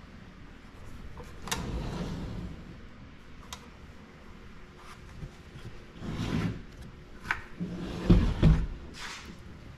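A snowmobile engine being rolled over and shifted by hand on a workbench: scrapes and knocks of the engine case against the bench top, with the loudest thumps near the end as it is set back down upright.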